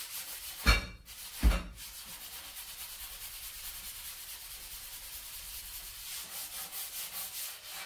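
Steel scrubber rubbing hard over an electric stove to scour off burnt-on black stains, in quick, steady strokes. Two knocks come about a second in.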